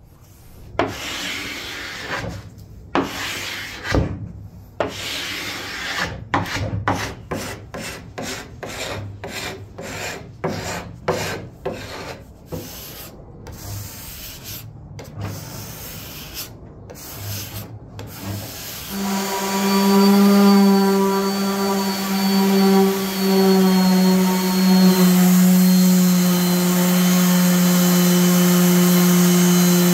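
Short rasping strokes of a hand scraper pulling softened finish off a cherry tabletop, one after another with brief gaps. About two-thirds of the way through, a DeWalt random orbit sander starts on the bare wood and runs at a steady hum, the loudest sound.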